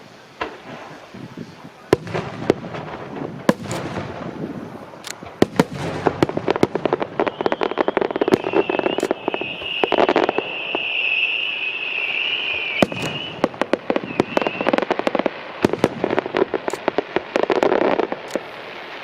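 Aerial fireworks going off: rapid sharp bangs and crackling that thicken after the first couple of seconds, with a high, wavering whistle holding for several seconds in the middle.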